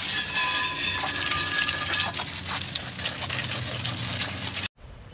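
Water hose spraying steady hiss onto a steel wheel rim, rinsing off CLR cleaner; the spray cuts off abruptly near the end.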